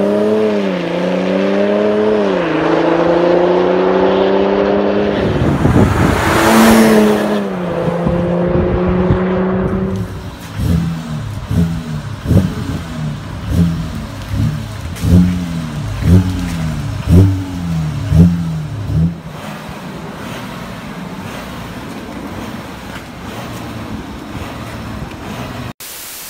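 Audi Q7 3.0 TDI V6 turbodiesel on a Stage 2 tune with a full aftermarket exhaust, first accelerating up through the gears and driving past. Then, parked, it is given a series of short throttle blips and settles to a steady idle.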